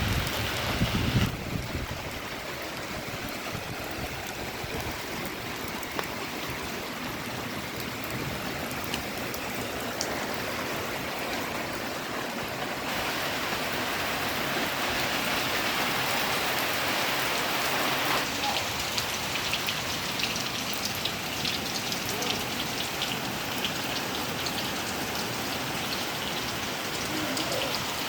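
Monsoon rain falling steadily in a continuous hiss, with a low rumble at the very start. Its character changes abruptly about a second in, again about halfway, and a few seconds after that. In the last part individual drops splash distinctly.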